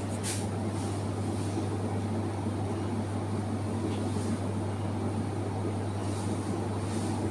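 Steady low hum and fan noise of refrigerated supermarket display cases running, with a few faint short hisses over it.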